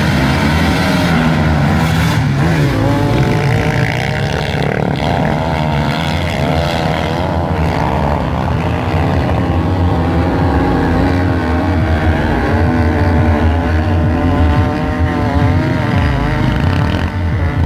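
Off-road motorcycle engines revving over a steady low rumble, their pitch wavering up and down as the bikes climb a snowy slope.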